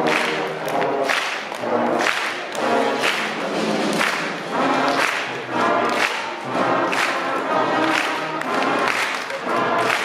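School concert band playing a blues number: short pitched phrases repeat about once a second, with sharp strokes on the beats.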